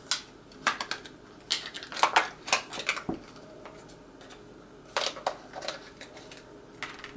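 Scissors snipping through a thin plastic yogurt cup, a series of irregular sharp snips and crackles of the plastic, with a pause a little past the middle.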